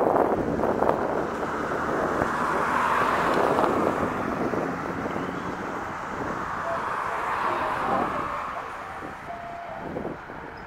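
Highway traffic going by, a steady rush of tyre and engine noise that swells and fades as vehicles pass, with wind on the microphone.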